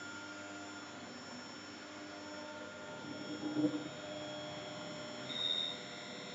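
Steady electrical or machine hum made of several constant tones. There is a brief louder noise about three and a half seconds in and a short high-pitched whine near the end.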